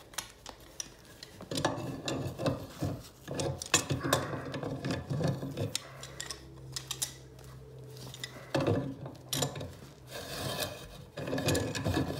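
Rust and scale being scrubbed off a corroded steel pipe union on a convector radiator element, in irregular scraping strokes. The strokes pause for a couple of seconds midway, leaving a low steady hum.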